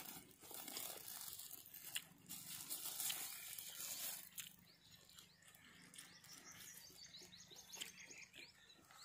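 Faint crinkling of a plastic bag being wrapped around a freshly set mango graft. About halfway through, a bird calls with a quick run of short, high repeated notes.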